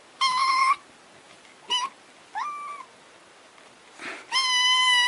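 A kitten meowing: three short, high meows in the first three seconds, then a longer, steady meow starting about four seconds in.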